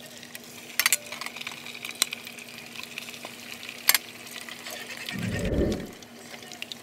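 Whole tilapia going into hot frying oil in a wok: the oil starts to sizzle about a second in, with two sharp clacks of the glass lid and pan, about three seconds apart. About five seconds in a brief low rumble is the loudest sound, over a faint steady hum.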